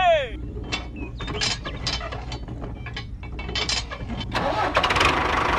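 Small clicks and rattles of a toy trailer's hitch ring and a small metal bolt being handled and fitted into a toy tractor's hitch, thicker near the end. It opens with a brief rising-and-falling tone.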